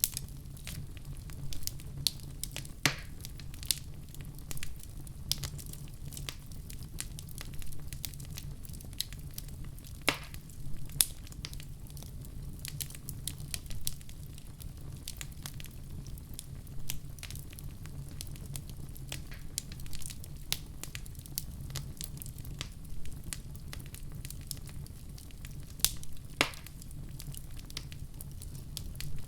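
Wood fire burning in a fireplace: a steady low rumble of flames with irregular crackles and occasional louder pops.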